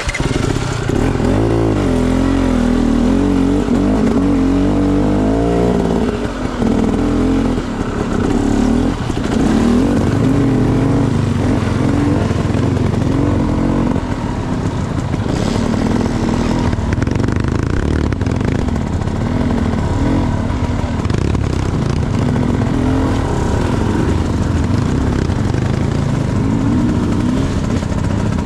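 A trail motorcycle's engine running under load, its pitch rising and falling again and again as the throttle is worked, over a dense low rumble.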